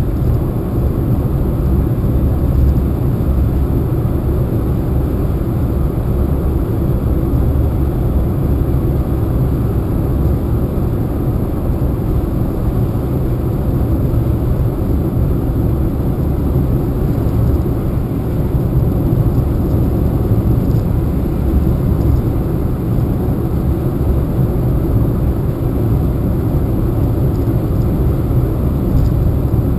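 Steady low rumble of a car driving along a sealed road, heard from inside the cabin: tyre and engine noise, even throughout.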